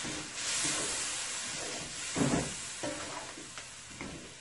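Potatoes and curry masala sizzling in a nonstick pot as a wooden spoon stirs them, with a few soft knocks and scrapes of the spoon, the loudest about two seconds in. The sizzle slowly fades.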